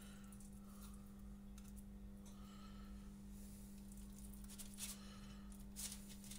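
Near silence: a faint, steady low hum, with a few faint soft taps in the last two seconds.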